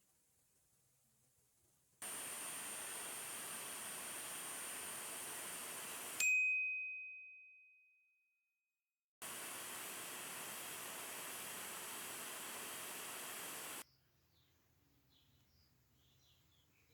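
A steady hiss in two stretches with abrupt starts and stops, and about six seconds in a single bright ding that rings out and fades away.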